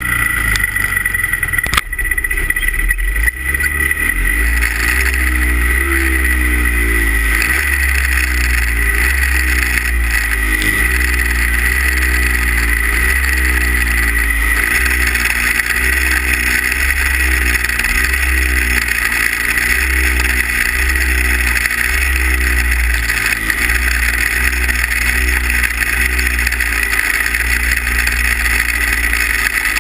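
Two-stroke 340 cc racing snowmobile engines idling at the start line. The revs rise and drop about once a second as the throttle is blipped.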